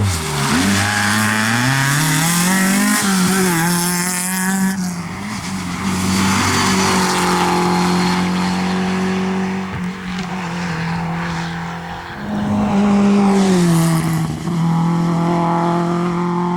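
Rally car engine at high revs, its pitch dropping and climbing again near the start and around three-quarters of the way through as it brakes and shifts, and held steady for long stretches in between.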